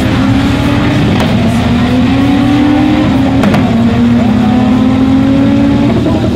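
Turbocharged front-wheel-drive drag cars making a full-throttle pass down the strip, loud, engine pitch climbing through the gears. It breaks with a sharp shift about a second in and again about three and a half seconds in, then falls away near the end.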